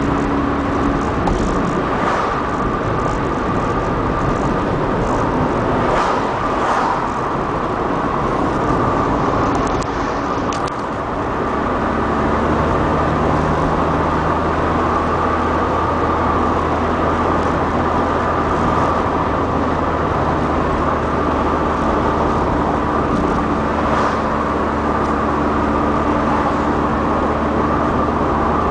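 Inside the cabin of a Mk3 VW Golf GTI 16v, its 2.0-litre four-cylinder engine and tyre noise running steadily while cruising. The level dips briefly about eleven seconds in, and the engine then settles to a steady lower note.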